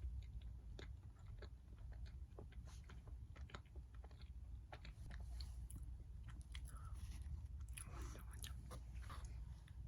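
Close-miked chewing of soft chocolate mochi roll cake: irregular wet mouth clicks and smacks.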